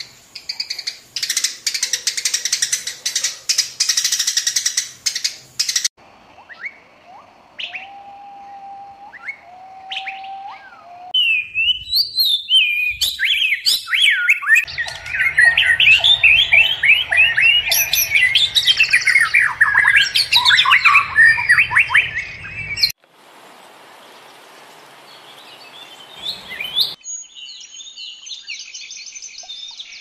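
Songbirds calling and singing in a run of spliced recordings that change abruptly every few seconds. First comes a dense, fast chirping, then short whistled notes, then a long, loud stretch of rapid, varied song, and softer chirps near the end.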